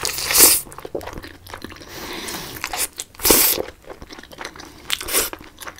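Close-miked chewing of a crisp lettuce wrap filled with pork belly: three loud crunches, one near the start, one midway and one near the end, with smaller wet chewing clicks between them.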